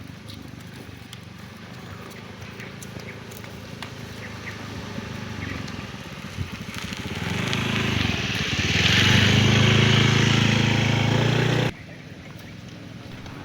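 A motor vehicle's engine running steadily and growing louder as it comes closer, then cut off suddenly near the end.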